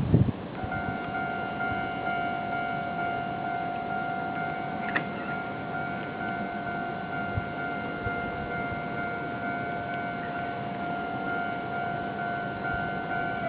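Japanese level-crossing warning bell ringing, a steady repeating electronic clang that starts about half a second in, warning that a train is approaching the crossing.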